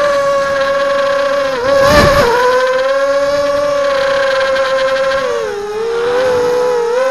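Coptergeist CGX250 mini quadcopter's brushless motors and propellers whining steadily, heard close up from the camera on its frame. About two seconds in there is a short, loud rush of noise with a wobble in pitch. The whine drops in pitch a little after five seconds and edges back up near the end.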